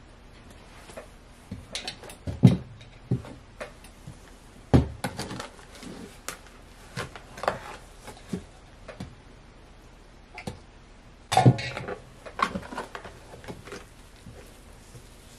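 Hands working a clump of wet sand slime in a plastic tub: irregular squishes, rustles and knocks against the tub, with sharper thumps about two and a half, five and eleven and a half seconds in.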